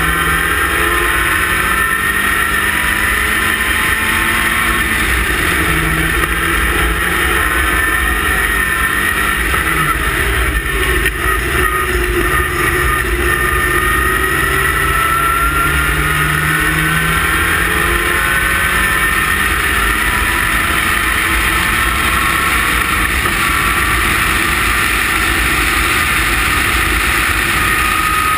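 Westfield race car's engine pulling hard, heard from the open cockpit, its pitch climbing through each gear and dropping back at every upshift, again and again, with a constant rush of noise underneath.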